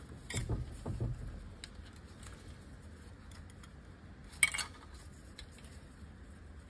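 Handling of the wiring harness and electrical connectors on a Subaru 4EAT automatic transmission's valve body: soft low bumps in the first second or so, then a single sharp clink about four and a half seconds in.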